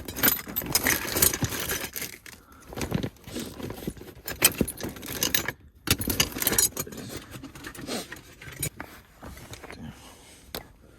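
Metal sockets and hand tools clinking and rattling in irregular bursts as someone rummages through a toolbox for a 19 mm socket.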